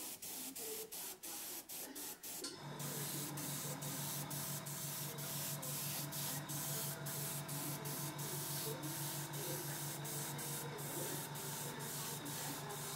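Airbrush hissing as it sprays paint, cut off and restarted many times in quick succession by the trigger at first. About two and a half seconds in, a steady low motor hum starts under the hiss, and the spraying then runs on more continuously.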